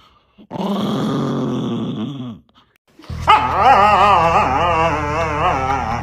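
A dog's long drawn-out vocal calls: one lasting about two seconds, then after a short gap a longer one whose pitch wavers up and down over a steady low hum.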